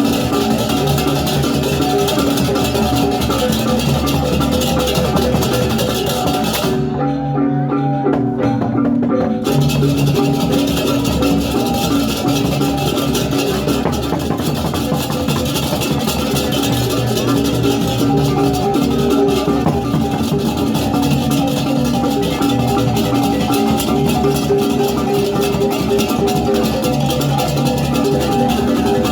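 Balinese gamelan music: tuned metal mallet percussion and drums playing continuously, with the high shimmer dropping out for a couple of seconds about seven seconds in.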